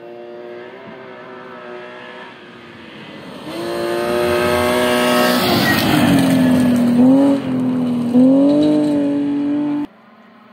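BMW E36 3 Series rally car passing at speed on a gravel stage. The engine is faint as it approaches and loud as the car slides by with a rush of gravel noise. The pitch drops as it passes, then climbs twice as the car accelerates away, and the sound cuts off suddenly near the end.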